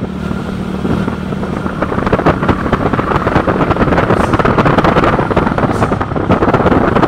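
Heavy vehicle's engine running hard on a steep downhill road, a rapid pulsing clatter that grows louder from about two seconds in.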